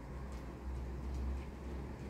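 Low, steady outdoor rumble that swells slightly about a second in, with a few faint ticks over it.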